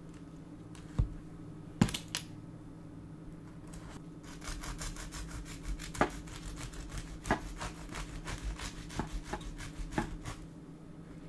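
Knife sawing through a toasted club sandwich on a wooden cutting board: rapid back-and-forth strokes through the grilled bread for about six seconds, with a few sharper clicks among them. Two sharp knocks come before the cutting starts.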